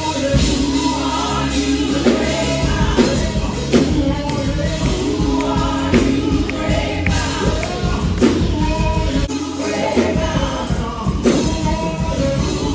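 Live gospel praise singing: a man and several women sing together into microphones over amplified band accompaniment with a steady bass and regular drum strikes.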